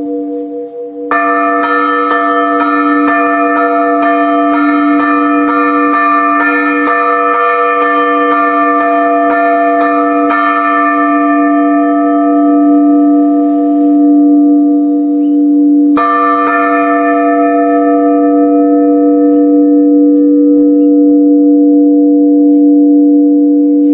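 A 400 kg fixed church bell of fine bell alloy, struck about twice a second for some nine seconds, its long steady hum ringing under the strokes. It then rings on and fades, is struck once more about sixteen seconds in, and its hum lingers.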